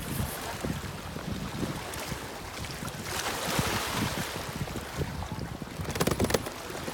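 Wind buffeting the microphone over river water lapping against shoreline rocks, with a cluster of sharp clicks about six seconds in.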